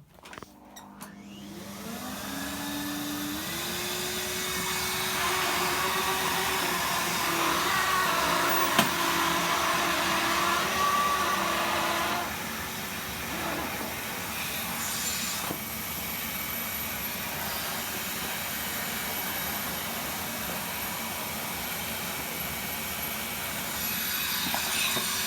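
Numatic Henry HVR200 tub vacuum cleaner switching on, its motor winding up in pitch over a few seconds and then running steadily with a rushing suction noise. The sound drops a little about halfway through, and the motor starts to wind down at the very end.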